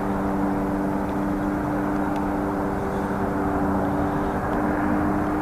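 Steady machine hum: several tones that hold one pitch, over an even rushing noise.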